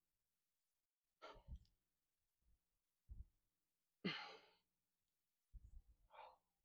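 A man breathing out hard in three short sighs from exertion during bodyweight exercise, the loudest about four seconds in, with a few soft low thumps between them.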